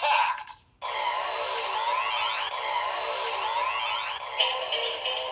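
A DX Kamen Rider Zero-One transformation-belt toy playing its electronic standby loop for the finisher, with the Biting Shark Progrise Key. After a brief silence, rising electronic sweeps repeat about every second over steady electronic tones.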